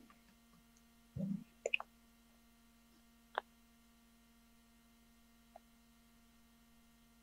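Faint steady electrical hum from an open call microphone, broken by a dull bump a little over a second in, a couple of sharp ticks just after it, and single clicks about three and a half seconds and five and a half seconds in.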